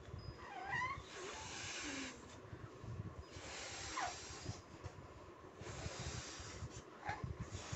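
Balloons being blown up by mouth: three long, hissing breaths forced into them, about two seconds apart, with short falling squeaks between the breaths.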